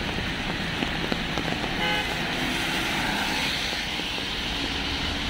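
City street traffic, with cars passing and a steady rush of road noise, and a short car horn toot about two seconds in.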